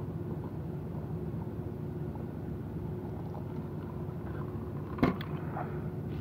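Steady low machine hum throughout, with one sharp knock about five seconds in as a plastic cup of soda is set down on the table.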